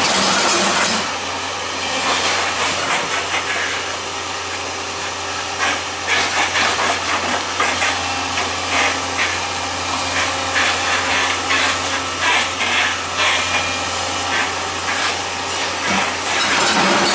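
Demolition machinery working: a steady low engine hum under loud hissing noise, with irregular knocking and clattering of breaking material from about six seconds in until near the end.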